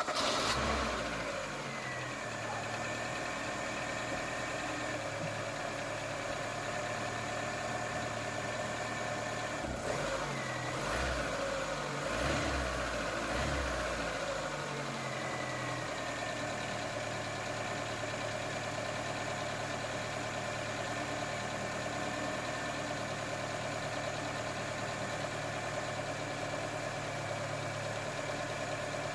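ZAZ Vida's 1.5-litre eight-valve four-cylinder petrol engine running at idle just after starting, its speed settling in the first couple of seconds. The engine speed shifts a few times between about ten and fifteen seconds in, then it idles steadily; this is the run-up after the throttle body and idle air control valve were cleaned.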